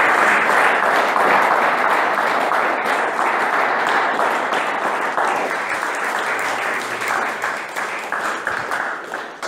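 A group of people applauding, with the clapping slowly thinning out toward the end.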